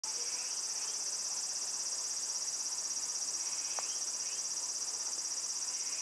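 A chorus of cicadas singing: a loud, steady, high-pitched shrill ringing that does not let up.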